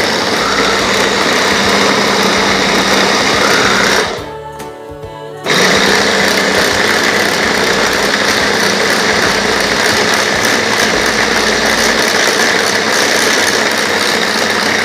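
Cosmos Blenz CB-802 blender motor running on high, its chopper attachment grinding raw chicken meat. It stops about four seconds in and starts again a second and a half later, running steadily until it cuts off.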